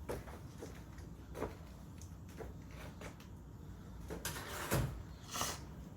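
Irregular clicks and knocks of metal tools and suspension parts being handled, with a heavier clunk about three-quarters of the way through followed by a short scrape.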